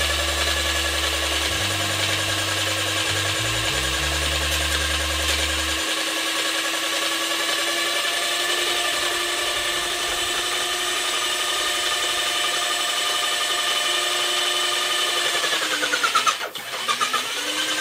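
Electric airless paint sprayer's pump motor running with a steady whine. Near the end its pitch dips and wavers as it struggles, drawing the last paint from a nearly empty bucket: it is losing prime.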